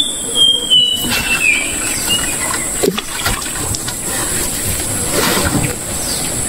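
Tropical riverside ambience: a steady high-pitched insect drone, a bird's falling whistle in the first two seconds, and a few scattered knocks and rustles.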